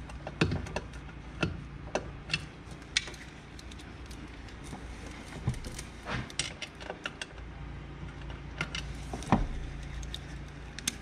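Metal hand tools clinking as a ratchet, extension and socket are fitted and worked on a fitting: scattered sharp clicks, a quick run of clicks about six seconds in, and a louder knock near the end.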